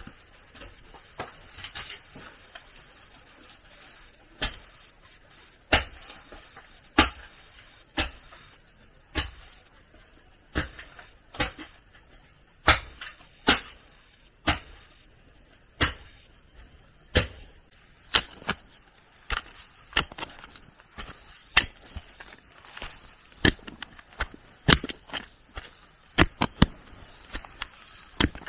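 Wood being chopped: after a few seconds of faint rustling, sharp single blows come about once a second, more closely spaced near the end.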